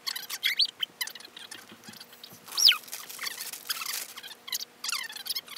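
Clear plastic packaging bag crinkling and rustling in irregular bursts as an upper control arm is unwrapped. A sharp squeak falls in pitch about two and a half seconds in.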